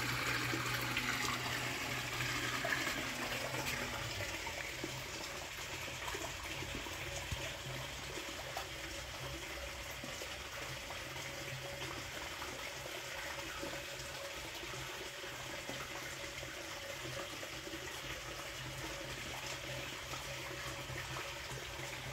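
Water trickling and bubbling in a glass goldfish tank, a steady hiss with a low motor-like hum. A louder rush and part of the hum drop away about four seconds in.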